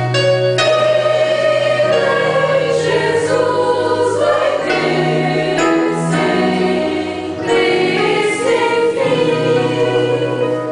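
Small church choir of women singing a hymn together, a continuous run of held sung notes.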